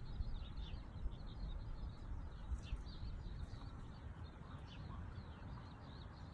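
Small birds chirping and twittering in many short, quick down-sliding notes, over a steady low rumble.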